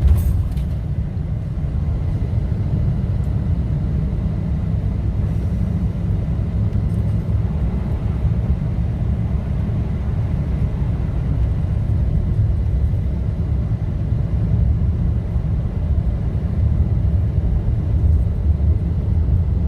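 Toyota Tacoma pickup driving on a snow-covered road: a steady low rumble of engine and tyre noise.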